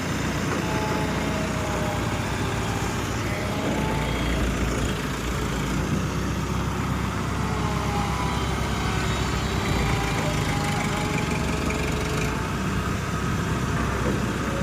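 Hydra pick-and-carry crane's diesel engine running steadily at low speed, with faint higher whining tones that drift a little in pitch.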